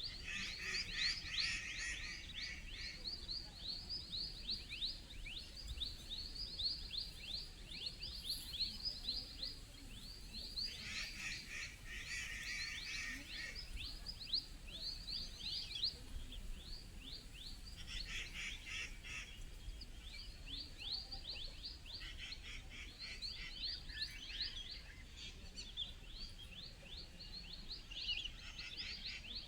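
Forest birds calling: an unbroken run of short, high chirps sweeping downward, a few each second. About five times, a lower, louder burst of chirping lasting a second or two joins in.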